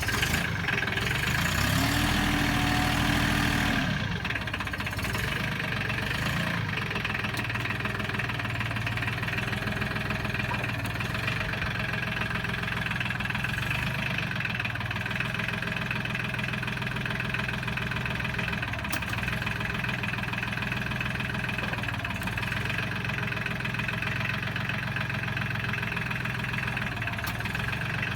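Mahindra 1526 compact tractor's diesel engine running just after starting. It revs up for a couple of seconds near the start, then settles to a steady idle.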